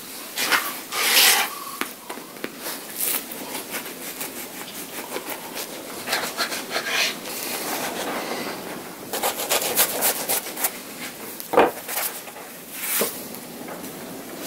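A knife sawing through a crusty loaf of bread on a wooden board: uneven rasping strokes of the blade through the crust, with scattered clicks and one sharp knock late on.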